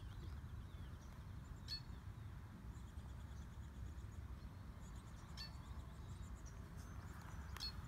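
Faint outdoor ambience in a grassy field: a steady low rumble of wind on the microphone, with short high bird chirps three times and faint insect calls.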